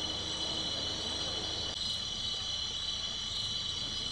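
Steady, shrill chorus of night insects, with a low rumble underneath.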